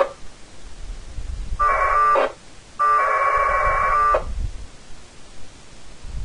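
1200-baud packet radio data bursts, the two-tone audio of the radio link between a Timewave PK-96 TNC and a Winlink gateway, heard over a speaker: a brief burst at the start, a short one under two seconds in, and a longer one about three seconds in. This is the packet exchange of the Winlink mail session as it finishes and disconnects.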